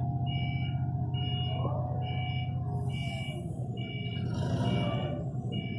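Propane forklift engine running steadily while its back-up alarm beeps about once a second, each beep a short two-tone note. A brief hiss comes through around the middle.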